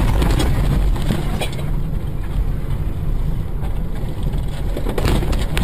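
Steady low rumble of road and engine noise inside a car's cabin at highway speed, with wind noise. It is louder for about the first second, as a truck passes close alongside.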